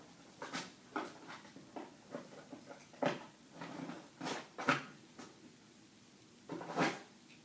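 A dog rummaging, giving a string of short, irregular rustles and knocks with the loudest near the end.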